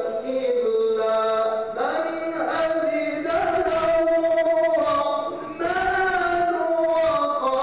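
A man's voice reciting the Quran in melodic mujawwad style, long held notes sliding up and down in pitch, with a short breath pause about five and a half seconds in.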